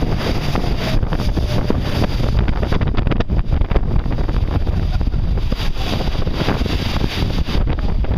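Strong wind buffeting the microphone on a boat in rough sea, over the rush of breaking, foaming water.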